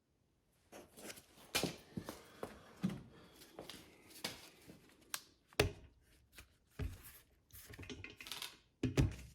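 Irregular clicks and knocks with light rustling: plastic truck light housings and their parts being handled. There are sharper knocks a little past halfway and again near the end.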